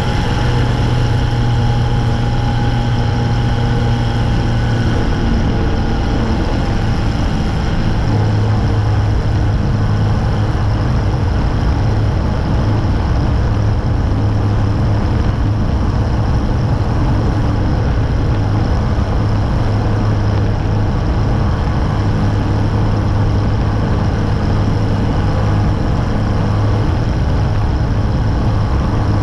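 Zenair 701 STOL ultralight's Rotax engine and propeller running steadily in flight, with air rushing past the wing-mounted microphone. The low drone drops slightly in pitch a few seconds in and then holds steady.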